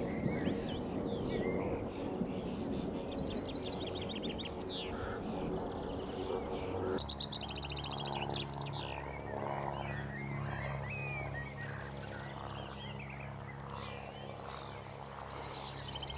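Small birds chirping and trilling, with quick repeated trills twice, over the low rumble of distant thunder. The rumble stops abruptly about seven seconds in, leaving a faint steady low hum under the birdsong.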